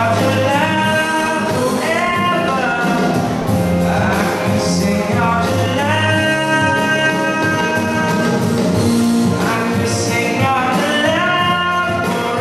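A man singing through a handheld microphone over amplified backing music, holding long notes.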